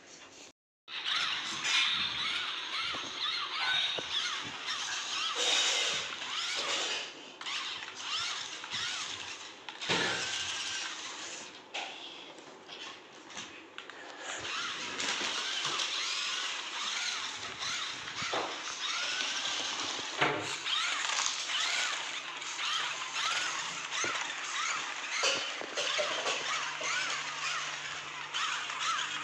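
Radio-controlled car running on a track, its motor whine rising and falling in pitch again and again as it speeds up and slows, with the hiss of its tyres and scattered clicks and knocks. The sound drops out briefly in the first second.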